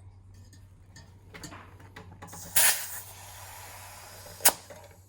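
Air hissing into a bike tyre's inner tube through its valve during inflation: a loud burst, then about a second and a half of steady hiss, ending in a sharp click.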